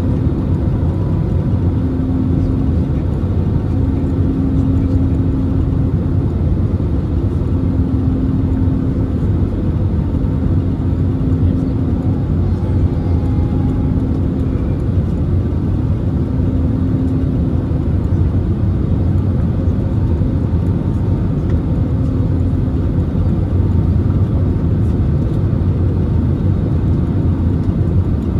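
Steady rumble and rush of jet engines and airflow inside a jet airliner's cabin, heard from a window seat over the wing in low-altitude flight. A faint hum comes and goes every second or two over the noise.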